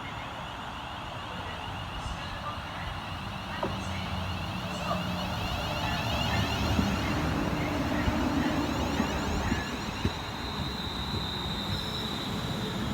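A train running through the station, its rumble building to its loudest in the middle, with a thin high tone coming in near the end.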